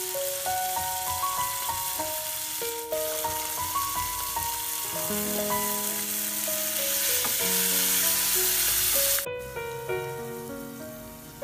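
Chicken pieces and green peas sizzling in hot oil in a nonstick wok, the sizzle growing louder after about five seconds and then cutting off abruptly about nine seconds in. Background music with a melody plays throughout.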